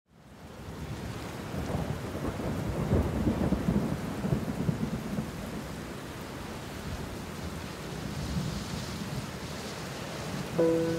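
Seaside ambience of wind rumbling on the microphone over the wash of waves on a shingle beach. A few steady notes of background music come in near the end.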